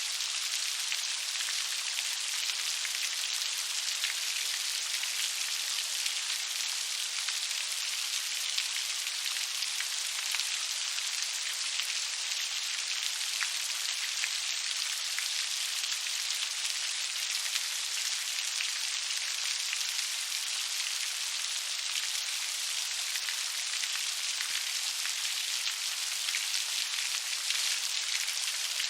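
Steady rain falling: a dense, even hiss of countless small drops, without change or pause.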